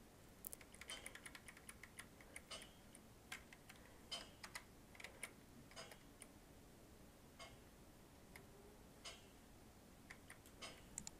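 Faint computer keyboard keystrokes, a scattered irregular series of light clicks, as numbers are keyed into spreadsheet cells.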